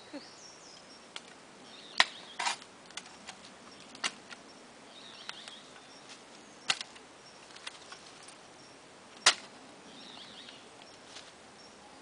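Dry twigs and sticks snapping and cracking, about five sharp snaps spread out with smaller clicks between them, over faint bird chirps.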